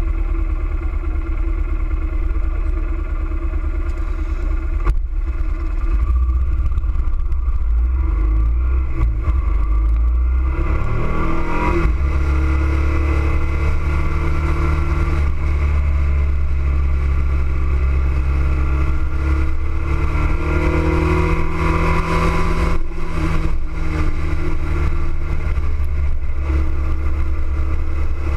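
Motorcycle engine heard from onboard at speed, under heavy wind rumble on the microphone. About eight seconds in the engine note climbs steeply as the bike accelerates, then settles into a steady run whose pitch slowly rises again, with a couple of sharp knocks along the way.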